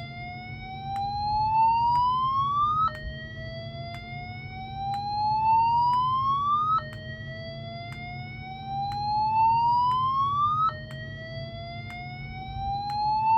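EST Genesis G1R-S7VM fire alarm speaker-strobe sounding its slow whoop tone. Each whoop is a pitch that rises steadily for about four seconds, drops back at once and starts again.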